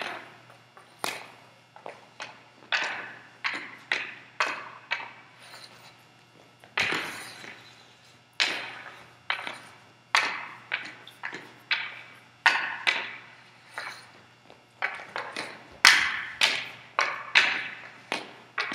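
Hockey stick blade knocking a puck across a gym floor while stickhandling: a string of sharp, uneven clacks, roughly two a second, each ringing briefly in the hall, with a few heavier knocks.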